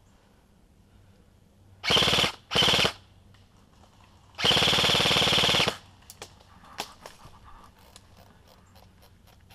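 G&G M4 airsoft electric gun firing full-auto: two short bursts about two seconds in, then a longer burst of over a second starting about four and a half seconds in.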